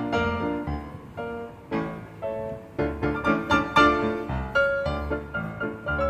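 Background piano music: a flowing run of struck notes and chords, each fading after it is played.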